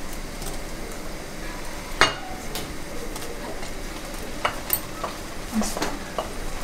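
Spiced water at a rolling boil, bubbling steadily in a pan, while wet wheat bran is scraped off a steel plate into it. The spatula scrapes and taps against the plate and pan, with one sharp knock about two seconds in and a few quicker taps near the end.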